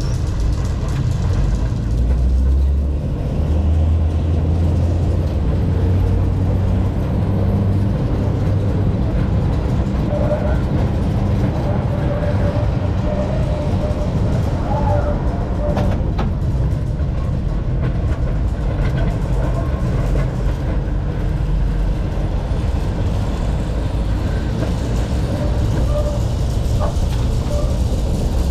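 Steady low rumble of a 1925 W2-class electric tram running along its track, with a few faint tones in the middle part.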